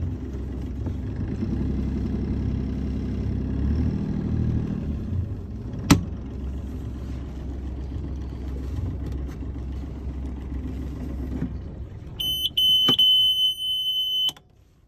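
1986 Yanmar marine diesel in a sailboat running with a steady low rumble, with one sharp click about six seconds in. Near the end the engine dies away, and the engine panel's alarm gives a steady high beep for about two seconds. Then all sound cuts off suddenly, as happens when an engine is shut down and its key switched off.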